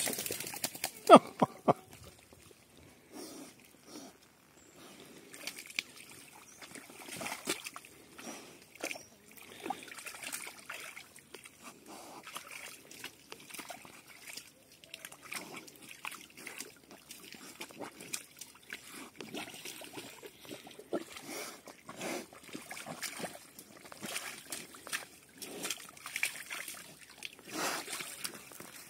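Pigs wallowing and splashing in a muddy water hole, with irregular splashes and sloshing.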